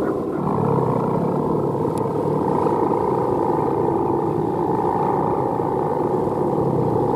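The hummer bow (guangan) of a Balinese plastic bebean kite droning steadily, a continuous hum with several pitches that waver slightly.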